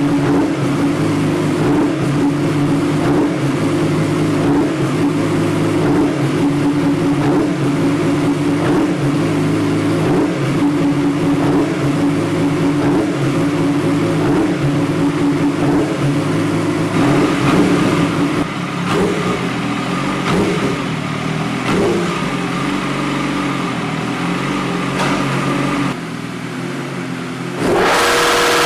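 Yamaha R6 inline-four engine running at steady revs, holding one note. The sound changes about two-thirds of the way through, then cuts abruptly near the end to a louder, higher engine sound.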